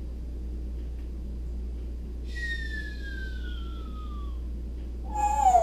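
Pet parrot giving one long whistle that glides steadily down in pitch, starting about two seconds in, then a short, louder falling call near the end. A steady low electrical hum runs underneath.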